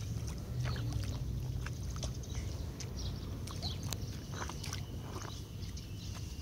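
Sneakers splashing step by step through a shallow muddy puddle, a series of short irregular splashes over a steady low rumble.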